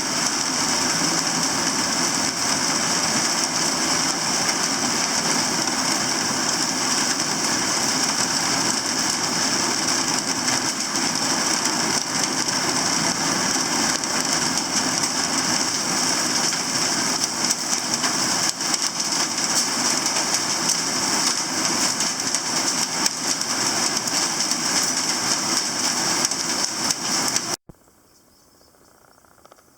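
Subaru EJ207 turbocharged flat-four engine idling steadily, then cut off abruptly a couple of seconds before the end.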